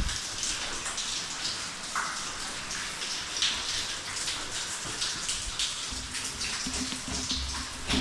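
A small trickle of water falling and splashing, with many irregular drops and spatters. A low pulsing hum joins in about six seconds in.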